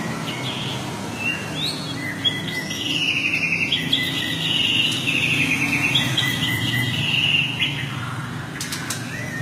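A white-rumped shama (murai batu) singing in full voice (gacor): fast, trilling, high phrases, densest in the middle, then lower phrases near the end. A steady low hum runs underneath.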